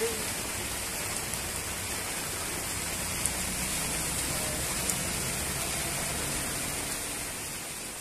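Heavy rain falling steadily on the road and vegetation, a dense even hiss. A passing bus's engine rumbles faintly underneath it, on the wet road.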